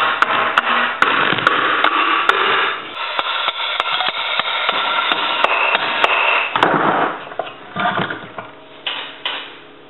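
Tools working the sump cover off a Tecumseh lawn mower engine: a run of sharp metallic taps and clanks over continuous tool noise for about six seconds, then a few scattered knocks that die away near the end.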